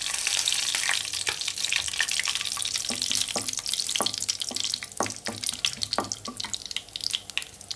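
Whole spices (cinnamon, cloves, cardamom) sizzling in hot oil in a nonstick pan, the sizzle loudest at first and easing off. From about three seconds in, a wooden spatula stirring them scrapes and taps the pan.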